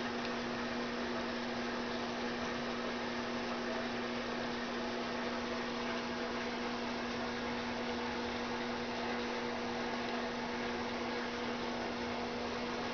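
Steady electrical hum, one low tone with fainter tones above it, over a constant hiss.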